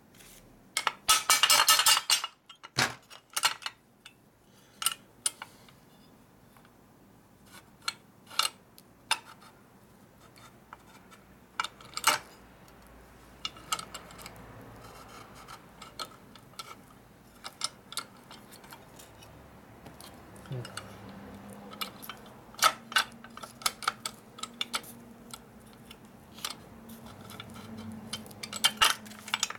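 Scattered metallic clinks and knocks of a steel shift rail and shift forks being worked into a T5 transmission's aluminum shift cover, with a quick run of rattling clicks about a second in.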